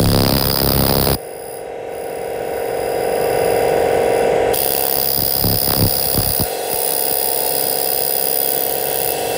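Handheld fiber laser cleaning machine running while it strips rust from a steel plate: a steady electric hum and whine with several held tones. About a second in it drops suddenly and then swells back over the next couple of seconds, and a few short crackles come in later.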